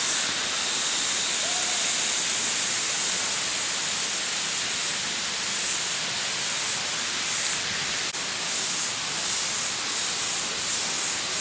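Steady rush of Whian Whian Falls, an even hiss of falling water, with a high shrill sound swelling and fading above it every second or so.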